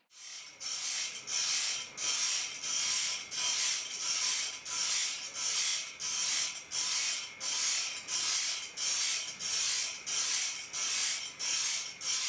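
Abrasive grinding wheel grinding a long steel strip, the metal pressed against the wheel in rhythmic passes just under twice a second, each pass a sharp grinding hiss that throws sparks.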